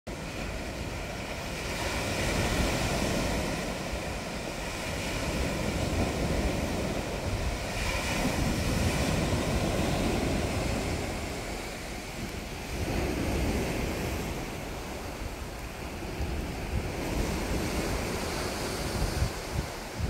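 Sea waves breaking and washing up a sandy beach, the surf swelling and easing every few seconds, with wind buffeting the microphone.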